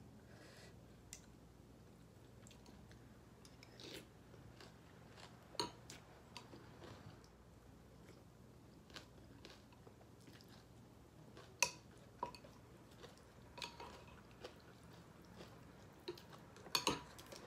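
A person chewing food up close, with soft mouth sounds and scattered light clicks and taps of dishes and utensils.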